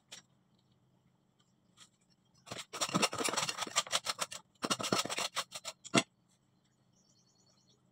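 Hand scraping and rubbing at the dirt and pipework in quick strokes, in two bursts: one of about two seconds starting a couple of seconds in, and a shorter one just after.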